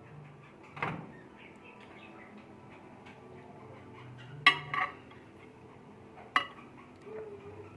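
Dishes being handled in a kitchen: a sharp knock about a second in, a louder pair of clinks past the middle and one more near the end, over a faint low hum.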